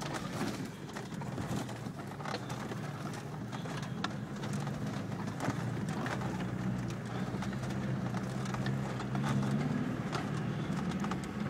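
Car engine running steadily at low revs, a low hum with scattered light clicks and knocks over it.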